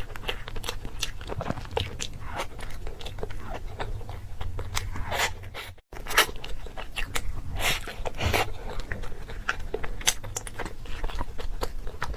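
Close-miked eating: crunchy bites and chewing, full of irregular crackles. A split-second dropout to silence comes a little before halfway.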